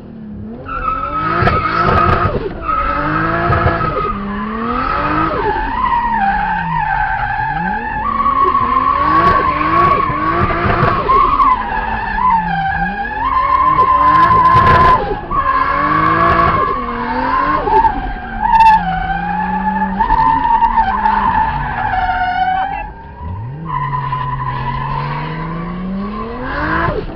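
Car being drifted, heard from inside the cabin: the engine revs up and down over and over while the tyres squeal and skid almost without a break. Near the end the squeal stops briefly as the engine pulls up through the revs.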